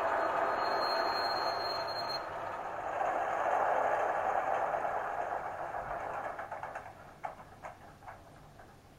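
H0-scale model diesel locomotive (BRAWA V36) running along the track, its motor and wheels making a steady hum with a thin high whine for the first two seconds. The running sound dies away about six to seven seconds in as the locomotive stops, leaving a few light clicks.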